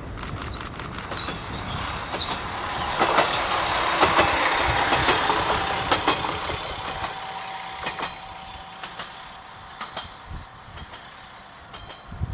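Single-car diesel railcar passing: the engine and running noise swell to a peak about four seconds in, then fade away as it moves off, with sharp wheel clacks over rail joints.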